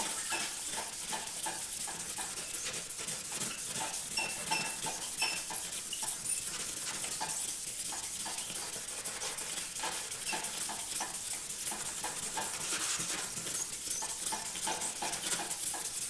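Red Scotch-Brite pad rubbed by hand over a white powder-coated aluminum license plate blank in quick back-and-forth strokes, a steady hissing rub. The plate is being scuffed to dull its gloss.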